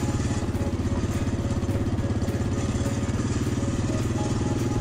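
Quad bike engine running steadily under way, a fast even pulse from the small single-cylinder motor.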